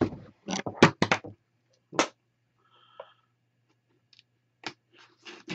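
A cardboard shipping box being handled and set on a desk: a quick run of knocks and taps in the first second or so, another knock about two seconds in, a short faint squeak near the middle, and a few lighter taps near the end.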